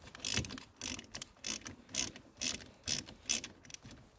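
Ratchet wrench with a 13 mm socket clicking in a steady run of short strokes, about two to three a second, as it loosens the terminal nut on a standby generator's battery.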